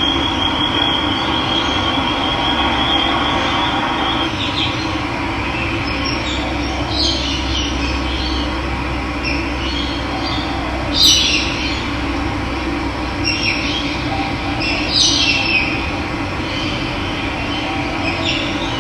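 Steady rush of running water, with birds chirping in short high calls several times over it and a thin, steady high-pitched trill for the first few seconds.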